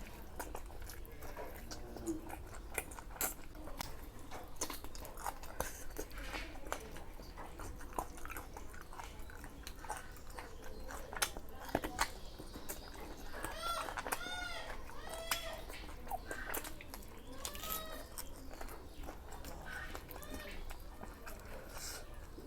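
Close-up chewing and lip-smacking of someone eating chicken curry with rice, full of short sharp mouth clicks. Past the middle comes a run of short squeaky smacks.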